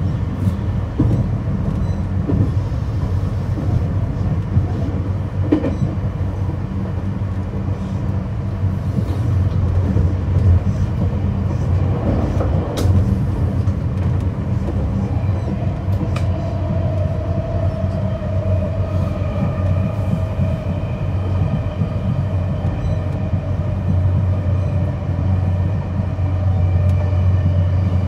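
Interior running sound of a JR 225-5100 series electric train's motor car with a Toshiba IGBT inverter: a steady low rumble from the wheels on the rails, with occasional clicks over rail joints. About halfway through, a whine from the traction motors and inverter comes in and holds.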